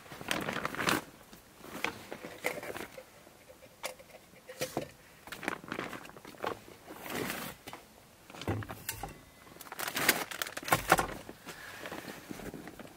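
Irregular rustling and light knocks, a dozen or so short bursts with quiet gaps between, as of gear being handled and moved about.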